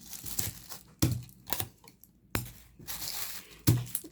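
Clear sticky tape being pulled off the roll and torn, with the thin plastic bag beneath it crinkling, in a series of short rips.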